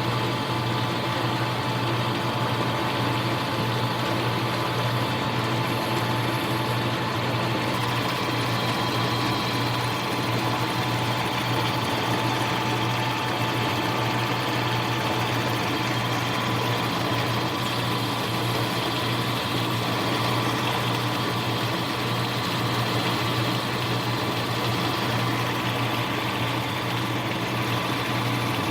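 Bench lathe running steadily under power with an even motor and gear hum that does not change, during a roughing pass on a plastic workpiece.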